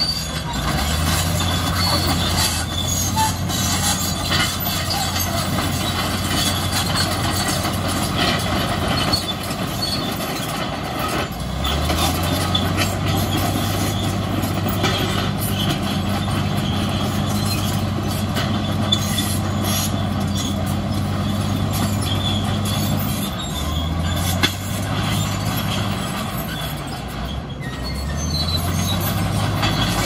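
Shantui crawler bulldozer's diesel engine running under load, with its steel tracks clanking and squealing. The engine note dips and picks back up several times as the machine works.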